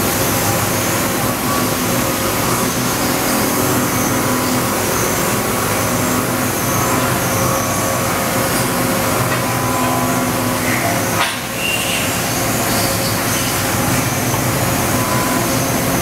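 Steady mechanical hum with several held tones from a Toyoda FA450 III CNC horizontal machining center under power, with a brief click about eleven seconds in.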